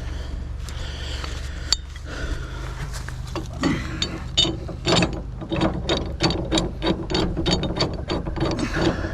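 A ratchet mechanism clicking repeatedly, starting a few seconds in and running at about four clicks a second, over a steady low hum.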